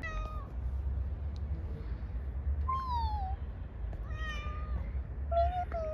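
Four short, meow-like animal calls, each about half a second long, some falling in pitch, over a steady low rumble.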